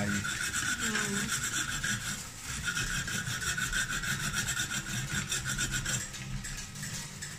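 Saladmaster hand-cranked food processor shredding carrot through its turning cone into a stainless steel bowl: a steady rasping scrape with fast, even clicks from the cone. It breaks briefly about two seconds in and gets lighter near the end.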